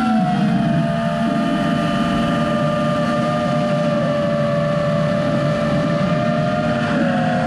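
FPV drone's electric motors and propellers whining steadily in cruising flight, several held tones over a rush of noise, the pitch shifting slightly near the end.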